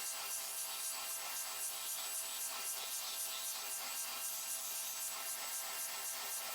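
Electric sander working on wood: a steady motor whine under a rough sanding hiss that pulses about four to five times a second.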